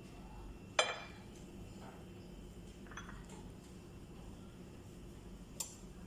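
Kitchen utensils and dishes clinking: one sharp clink with a brief ring about a second in, a softer knock around three seconds, and another short clink near the end.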